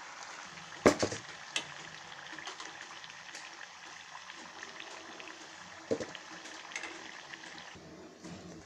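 Poha vadas deep-frying in hot oil in a kadai, sizzling steadily. A sharp clack of a utensil comes about a second in, and a duller knock near six seconds. The sizzling drops away shortly before the end.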